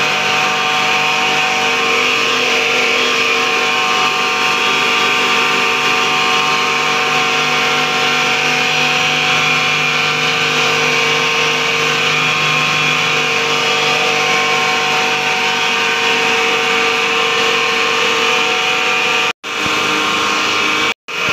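FFC-45 disk mill running steadily while grinding corn grits into fine corn flour: a loud, even machine drone with a few constant tones in it. The sound cuts out for an instant twice near the end.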